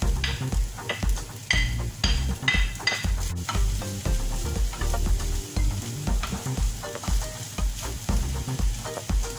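Chopped chicken and green peppers sizzling in a nonstick frying pan as a wooden spatula stirs and scrapes through them. Background music with a steady low beat about twice a second runs underneath.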